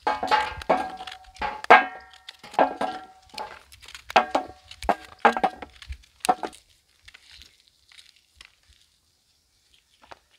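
Knife chopping bitter gourd over a stainless steel plate, each stroke and falling piece striking the plate and setting it ringing; a quick run of about a dozen metallic strikes that stops after about six seconds.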